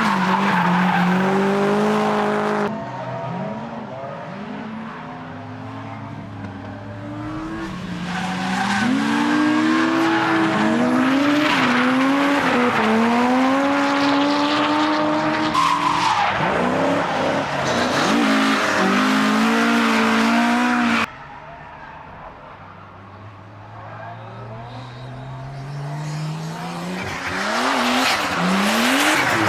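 Drift cars passing on a racetrack, their engines revving up and falling back again and again while holding slides, with tyre squeal and skidding. The sound drops suddenly about three seconds in and again about twenty-one seconds in, then builds back up as more cars come through.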